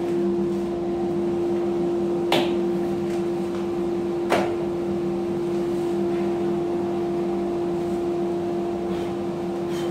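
Workshop dust extractor running with a steady hum. Two sharp knocks of wood, about two seconds in and about four seconds in, as the jig and the workpiece are handled.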